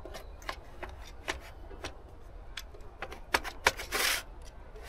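Scattered clicks and knocks, with a short scrape about four seconds in, as an e-bike's removable battery pack is slid back into its mount in the frame. The sharpest clicks come a little past three seconds.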